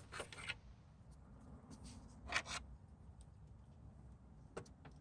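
Soft handling noises from working the plastic turn-signal wiring connector apart: a few brief clicks and rustles, the loudest about two and a half seconds in.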